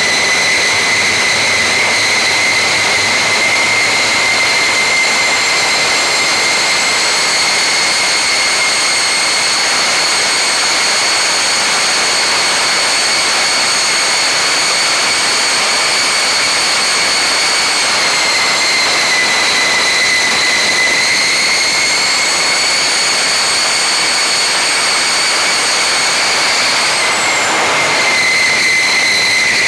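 Homemade turbojet engine with afterburner running steadily: a loud rushing roar of exhaust with a high turbine whine over it. The whine dips briefly in pitch about two-thirds of the way in, and again near the end.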